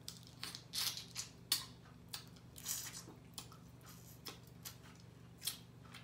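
A person chewing food close to the microphone: irregular wet clicks and smacks from the mouth, a few each second.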